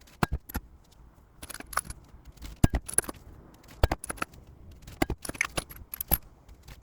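Hand stamping a copper ingot: a hammer strikes steel letter and number punches into the bar in a series of sharp, irregularly spaced metallic blows, with lighter clinks between them.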